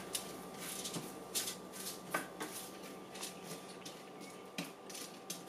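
Wooden spatula stirring and scraping roasted sweet potato cubes around a foil-lined sheet pan: soft, irregular scrapes and light clicks as the cubes are pushed about, over a faint steady hum.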